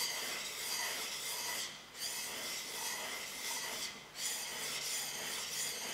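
Steel plane blade rubbed back and forth on a wet 1000-grit waterstone: a steady gritty hiss in long strokes with a brief pause about every two seconds, as the cambered edge is honed.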